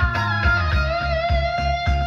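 Music played loud through an outdoor PA rig of 18-inch BV bass cabinets and line-array speakers: a guitar lead holds one long note over a steady, heavy bass beat.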